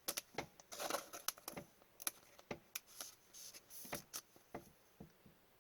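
Upper Deck hockey trading cards handled and flipped through by hand: an irregular run of soft clicks, snaps and rustles that stops about five seconds in.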